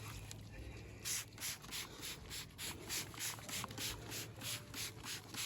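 Trigger spray bottle of fly spray squirting onto a horse in quick repeated pumps, about three hissy squirts a second, starting about a second in.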